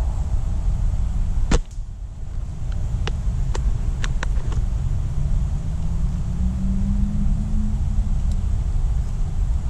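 A single shot from a Silverback SRS spring-powered airsoft sniper rifle about a second and a half in, the loudest sound, followed by several light clicks a couple of seconds later, over a steady low rumble.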